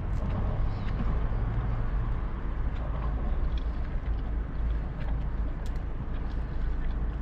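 Steady low rumble of a car's engine idling, heard from inside the cabin, with a few faint light clicks over it.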